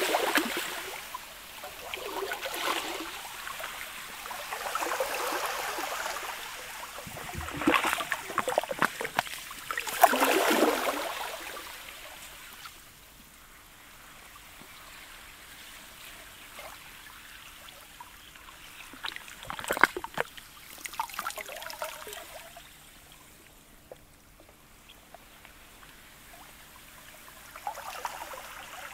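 Sea ice of sludge and pancake ice lapping a shore: several waves wash in and drain back through the first dozen seconds, the loudest about ten seconds in. After that come quieter trickling and a few sharp clicks around twenty seconds in.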